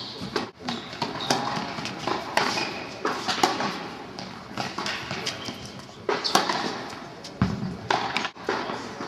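Tennis ball struck by rackets and bouncing on an indoor hard court during a rally: a string of sharp pops at uneven intervals, over steady hall noise.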